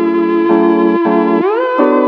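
Background music: a steady pitched melody whose notes glide down near the start and slide back up about a second and a half in.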